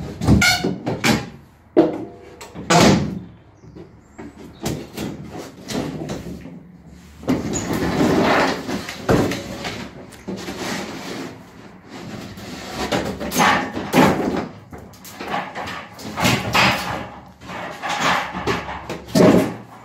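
A plywood shipping crate being opened: a screwdriver prying up the lid, with a run of sharp knocks and clatter, then longer stretches of wood scraping against wood as the plywood lid is worked loose and lifted off.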